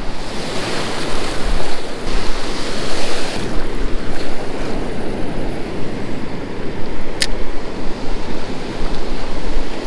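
Ocean surf washing and breaking around a wading angler, with wind buffeting the camera microphone and a strong low rumble throughout. A single short sharp click about seven seconds in.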